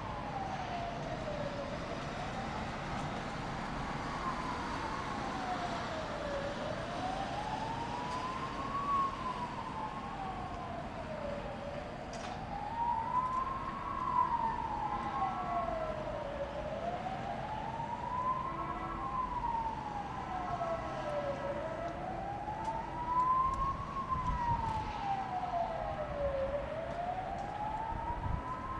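Emergency vehicle siren on a slow wail, rising and falling about once every five seconds, with a fainter wail trailing out of step behind it. A low rumble runs underneath.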